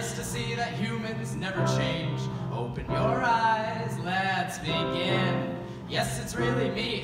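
A male solo voice singing through a microphone and PA, with vibrato on a held note about three seconds in, over digital piano accompaniment.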